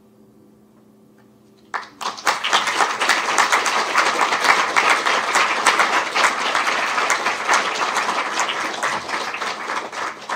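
Audience applauding at the close of a lecture: a dense patter of clapping that starts suddenly about two seconds in, holds steady, and dies away at the end.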